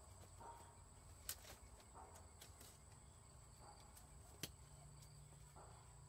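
Near silence: faint outdoor ambience with two sharp clicks about three seconds apart and a few faint short chirps.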